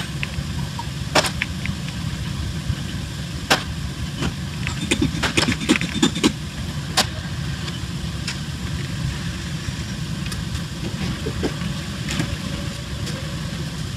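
Steady low machinery hum in a heavy-repair workshop, with scattered sharp metal clicks and clanks from the steel rig being handled, several of them close together around the middle.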